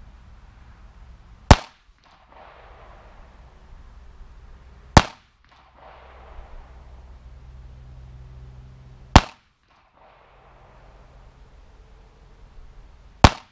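Four single shots from a Ruger Mark III .22 LR semi-automatic pistol firing 40-grain round-nose lead ammunition, slow aimed fire about three and a half to four seconds apart, each a short sharp crack.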